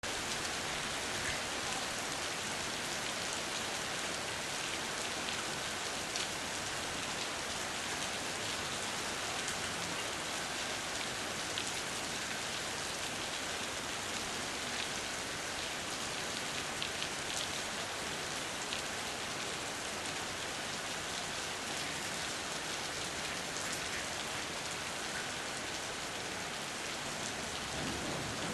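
Heavy rain pouring steadily onto the street and pavement, with sharp close drops spattering. A low rumble of thunder begins near the end.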